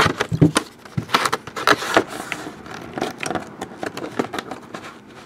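Handling noise of a trading-card box break: irregular rustling, scraping and clicking as the packaging is opened and the last photograph is pulled out.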